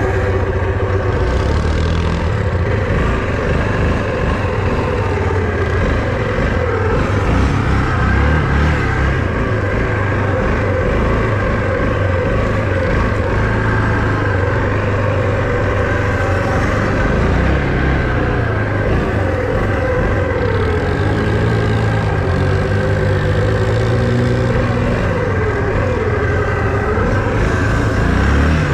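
All-terrain vehicle engine running steadily under load while being ridden, its pitch rising and falling as the throttle is worked.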